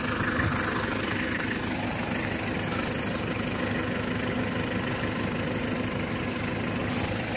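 Vehicle engine idling steadily, a constant low hum.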